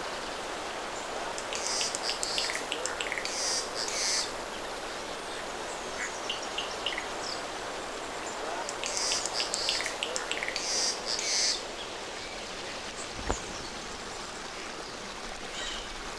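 Green jay (Cyanocorax yncas) giving harsh, rasping calls in two bouts, about two seconds in and again about nine seconds in, over the steady rush of a forest stream, with a few thin chirps of other birds.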